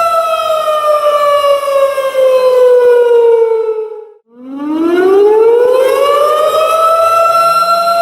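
Tornado warning siren of the air-raid type, with a wail that slowly falls in pitch and fades out about four seconds in, then rises back up to its steady pitch near the end.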